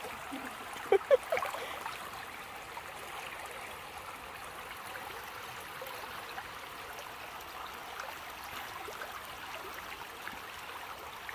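Small creek running steadily, its water rushing and trickling over a low drop through tangled roots and branches. Two short, louder sounds come about a second in.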